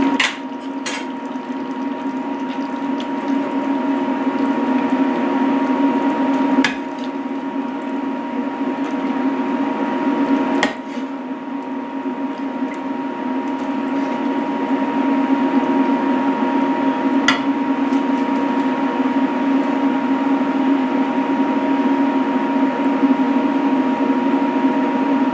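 Steady hum with a constant high whine, together with the bubbling of curry simmering in a pot on an induction cooktop. A few sharp clicks are heard as curry is served into a bowl.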